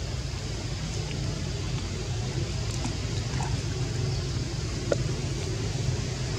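Steady low outdoor rumble with a faint trickle of water, and a small sharp click about five seconds in.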